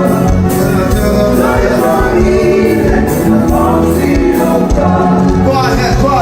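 Gospel worship music with a choir singing over a steady beat.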